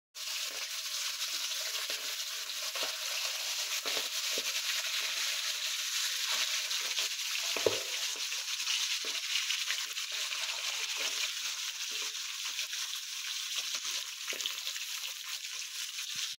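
Marinated fish pieces frying in mustard oil in a pan: a steady sizzle, with a few light knocks, the loudest about eight seconds in.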